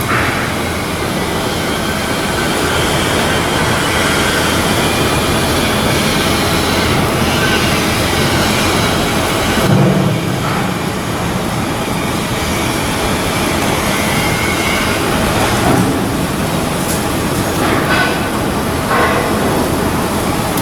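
Shipyard work noise: a steady, loud mechanical din with brief metallic squeals, a heavy thud about halfway through and a few short knocks near the end.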